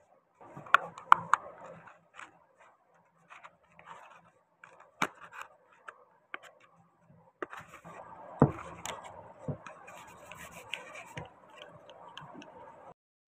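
PVC-card mold frames being pried apart and peeled off cured epoxy-resin castings by hand: scattered sharp clicks and snaps of plastic card, then several seconds of rubbing and scraping as the card walls are worked loose.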